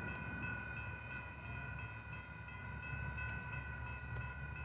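Grade-crossing warning bell ringing steadily as the gates are down, with a faint low rumble underneath from the approaching freight.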